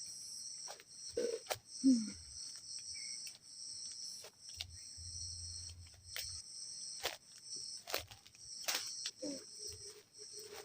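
Steady, high-pitched chorus of forest insects, with scattered sharp clicks and knocks over it.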